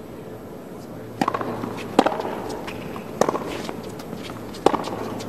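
Tennis ball struck by rackets in a hard-court rally: four sharp hits, the first a serve about a second in, then returns roughly every second.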